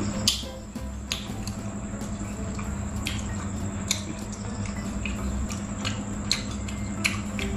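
Close-up eating sounds: wet chewing and mouth smacks, with about half a dozen short sharp clicks from wooden chopsticks and a bowl as noodles are lifted and dipped into broth. Underneath runs a steady low hum and a thin, steady high tone.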